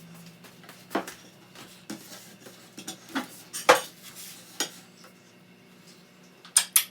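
Cutlery and dishes clinking: a scattered series of sharp clinks and knocks, with two quick ones close together near the end.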